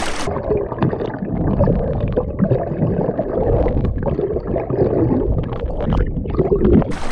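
Muffled underwater sound picked up by a submerged camera: a steady low rumble and churning of water, dull and stripped of all its high sounds.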